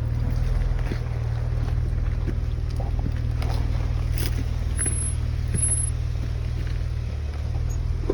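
Off-road 4x4's engine running at low, steady revs: a deep, even drone, with a few faint clicks over it.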